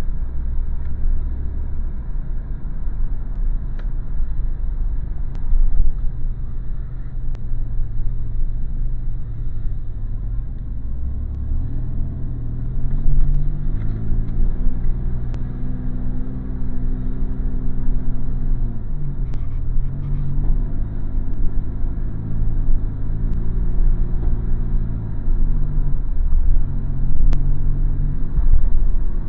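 Car engine and road rumble heard from inside the cabin while driving. The engine note climbs and drops several times as the car speeds up and slows.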